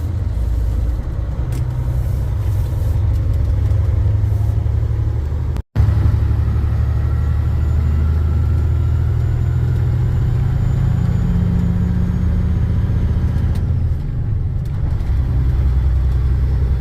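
Loaded grain truck's engine droning steadily while under way, heard from inside the cab as a deep rumble. The sound cuts out for an instant about six seconds in.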